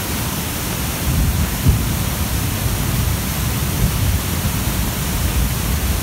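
Muddy stream in flood after heavy rain, rushing and churning over rocks in a loud, steady rush of water, with a low rumble underneath and brief low thumps, the strongest about one and a half seconds in.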